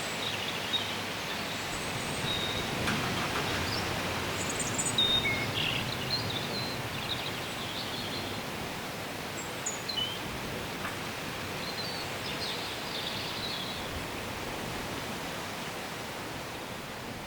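Steady wind rustling through trees and foliage, with brief high bird chirps scattered throughout.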